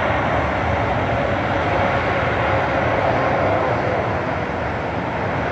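Jet engines of a landing Boeing 787-8 Dreamliner running loud and steady under reverse thrust as it slows on the runway.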